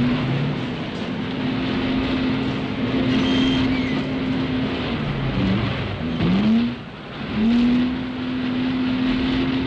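A motor vehicle's engine running under load at a steady pitch for several seconds, then easing off and revving up again in two rising sweeps, over a steady hiss.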